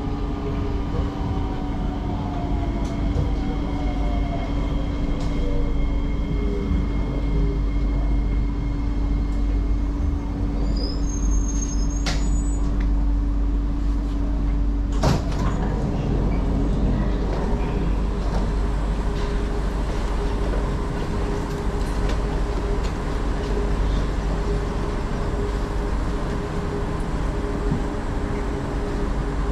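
Singapore MRT train braking into a station: the whine of its traction motors falls in pitch over the first several seconds, then gives way to a steady hum and low rumble as the train stands. A sharp clunk about halfway through fits the sliding doors opening.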